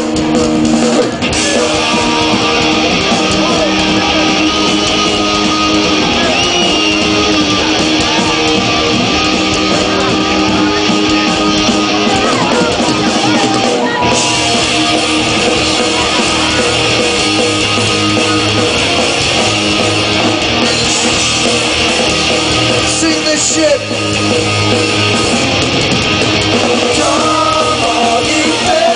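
Punk rock band playing live: distorted electric guitars, bass and drums, with singing at times.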